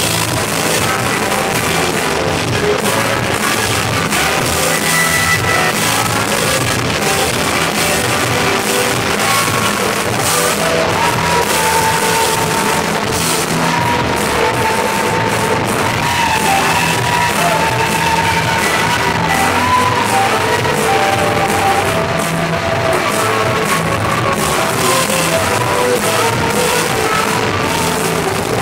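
Live rock band music with electric guitar, keyboard and singing, loud and harsh in a low-quality recording made from the floor of the room.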